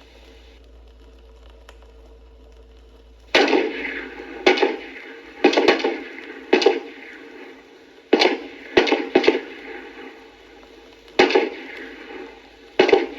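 A series of about ten sharp knocks or impacts at uneven intervals, each ringing out briefly. They begin a little over three seconds in, after faint hiss.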